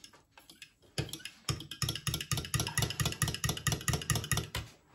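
Metal spoon clinking rapidly against a glass measuring jug while whisking beaten eggs, milk and brandy, about six or seven clinks a second. It starts with a few scattered taps and settles into a fast, even rhythm from about a second and a half in.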